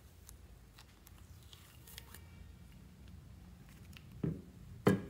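Soft clay being pried out of a clear plastic tub, with faint small clicks and sticky scrapes. Near the end come two dull knocks about half a second apart as the lump is set down in a glass dish.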